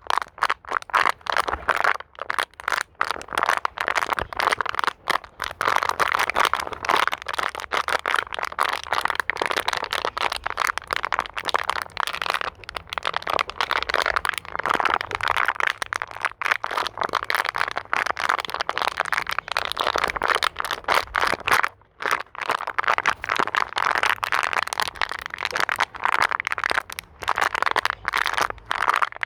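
Plastic bottle being crinkled and squeezed in the hand, a dense, continuous run of crackling and cracking with a brief pause about three quarters of the way through.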